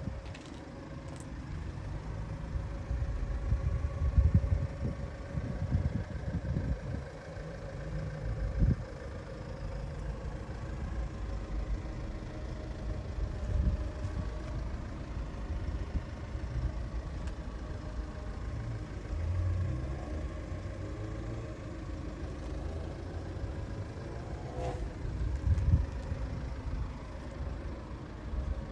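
Hyundai i20N hatchback running: an uneven low rumble with a faint steady hum above it.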